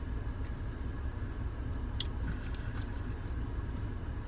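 Steady low rumble of background noise, with a few faint clicks about two seconds in.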